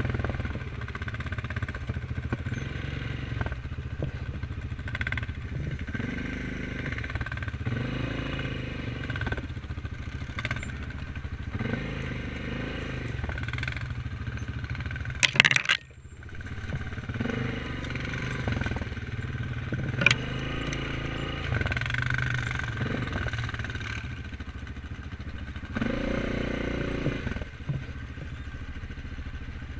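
Single-cylinder four-stroke ATV engine running steadily while riding over a rough forest trail, with rattles and knocks from the bumpy ground. A loud knock comes about halfway through, then another sharp knock a few seconds later.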